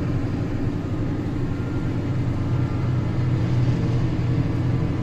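Claas tractor engine running steadily under load, driving a trailed Özen İş forage chopper through its PTO shaft on the 540-economy setting, heard from inside the cab as an even low drone.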